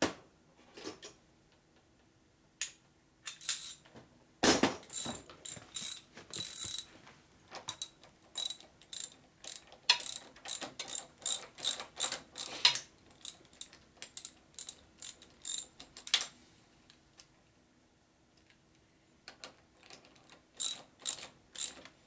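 Socket ratchet wrench clicking in quick back-and-forth strokes as bolts on a motorcycle front fork's top clamp are run down, about two clicks a second. There is a louder metallic clank about four seconds in and a short pause before the clicking resumes near the end.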